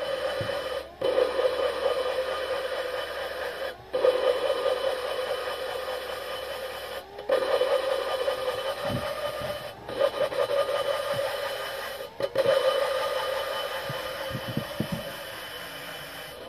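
Electric drill spinning an engine valve against its seat with lapping compound: a steady motor whine with a gritty rubbing, run in bursts of two to four seconds with brief stops between, about six runs in all.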